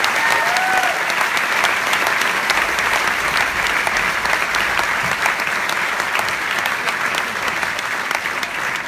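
A large audience applauding, dense steady clapping, with a couple of short rising-and-falling cries from the crowd just at the start.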